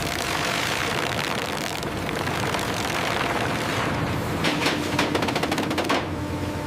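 Sawmill machinery running loudly, with a quick run of rattling, clattering knocks a little past halfway that lasts under two seconds.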